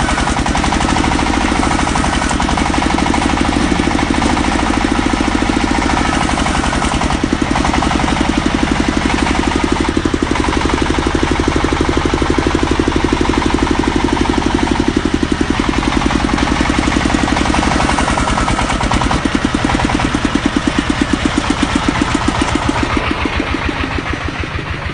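Engine of an industrial drilling machine running steadily with a rapid even pulsing; near the end the pulses slow and the sound grows quieter.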